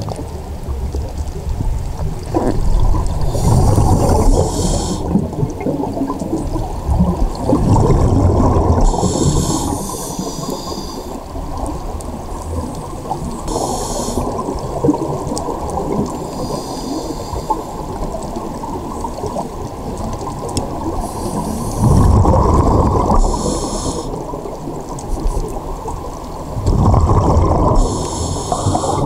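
Scuba regulator breathing and exhaled bubbles heard underwater through a phone's waterproof housing: a muffled, steady rumble that swells into louder bubbling surges every few seconds, with short hissy breaths between.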